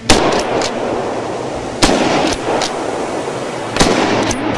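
Rifle shots at running boar: three loud shots about two seconds apart, each trailing off in echo, with a few fainter cracks between them.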